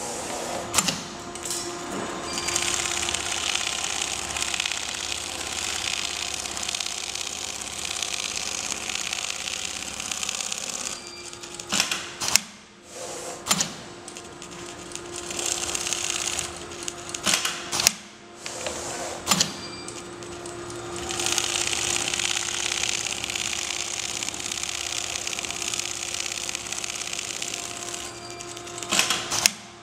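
CNC template sewing machine stitching quilting lines through a padded down-jacket sleeve panel: long runs of rapid needle strokes, broken several times by short pauses with sharp clicks where the stitching stops and starts again. A steady mechanical hum runs underneath.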